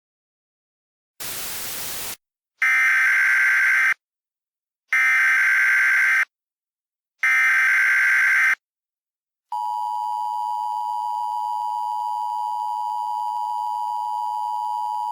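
About a second of static, then three short bursts of Emergency Alert System SAME header data tones, evenly spaced. They are followed by the EAS two-tone attention signal, held steady for about five and a half seconds, which announces an emergency alert broadcast.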